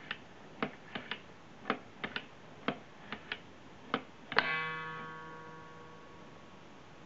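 Hand-cranked wooden automaton mechanism clicking irregularly as the handle turns the hunter's gun through its positions, then one loud bong from the automaton, a struck metal tone that rings on and fades over about two seconds, the signal that the hunter has fired at the elk.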